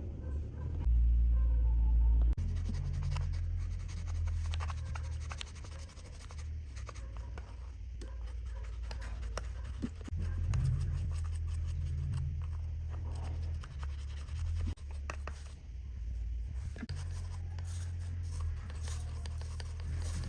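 Light scratching and small irregular clicks of a hand tool working on watch parts, over a steady low hum that is loudest for a second or so near the start.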